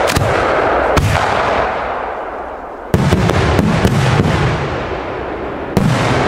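Large aerial fireworks bursting overhead. Sharp booms come about a second in, near three seconds and near six seconds, each followed by a long rolling echo, with crackling after the middle one.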